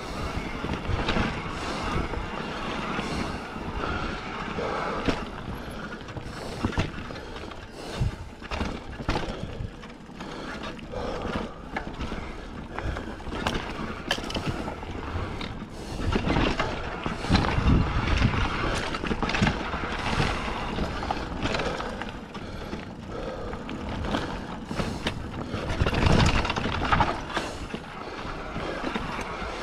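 Mountain bike rolling over a dirt trail: tyres crunching on dirt and roots, with the frame and drivetrain rattling and knocking over bumps. Louder jolts come about halfway through and near the end.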